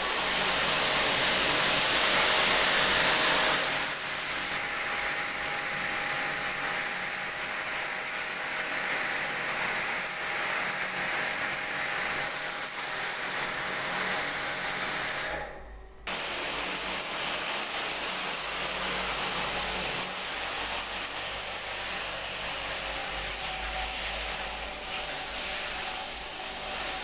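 Air conditioner running: a steady hiss of blown air with a faint hum under it, louder for the first four seconds or so. It dips out briefly about halfway through.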